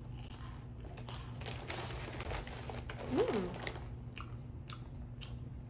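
Crunching and chewing on puffed white cheddar Cheetos Snowflakes close to the microphone, with a short hummed "mm" about three seconds in.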